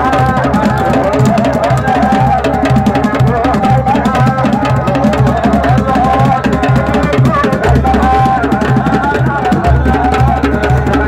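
Sufi zikr chant led by a solo voice with wavering, drawn-out notes over an amplified drum beat of about two strokes a second, loud throughout.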